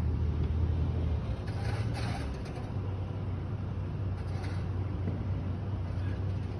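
A steady low mechanical hum.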